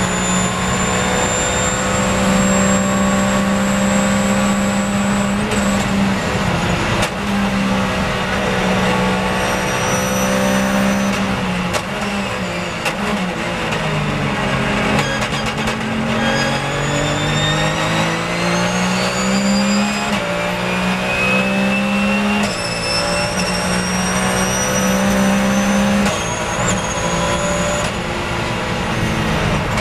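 Onboard sound of a Porsche 911 GT3 Cup's flat-six racing engine at full throttle, holding a steady high pitch. About eleven seconds in it brakes with a run of downshifts, the pitch falling in steps. It then accelerates back up through the gears with quick upshifts, runs flat out again, and lifts briefly near the end.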